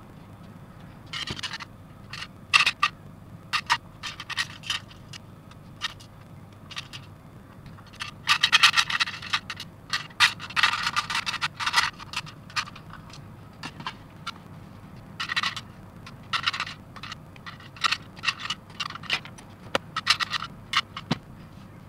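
Small plastic model-kit parts clicking and scraping as they are handled, with a denser run of rattling in the middle as loose parts are moved about in a clear plastic box.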